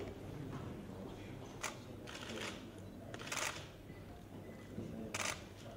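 Camera shutters clicking several times at irregular intervals over a low, steady room hum; the loudest click comes a little past the middle.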